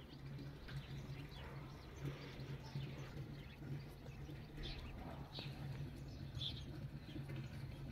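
Faint outdoor birdsong: scattered short, high chirps from small birds, a few standing out a little after the middle, over a steady low hum.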